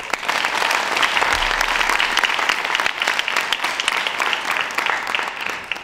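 Audience applauding in a hall: a dense, steady run of many people clapping that tails off near the end.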